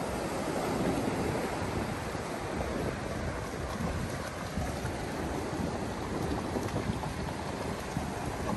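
Steady sea surf washing over a rocky shore, with wind rumbling on the microphone.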